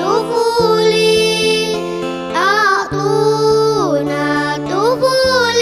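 Music: the Arabic song continues without words, a melody sliding up and down over held chords.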